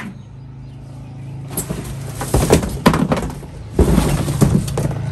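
Cardboard box scraping and rustling, with several sharp knocks, as a push lawnmower is lifted out of it. The noise starts about a second and a half in, over a steady low hum.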